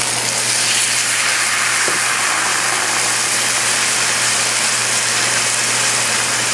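Dry white wine sizzling steadily as it is poured from a measuring cup into a hot sauté pan of browned chicken and vegetables, a faint steady low hum underneath.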